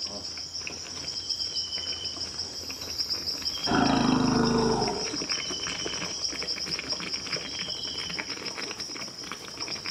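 Orphaned elephant calf giving one loud, low call lasting about a second, about four seconds in, while being bottle-fed milk. Crickets trill steadily throughout, with short high chirps repeating every second or two.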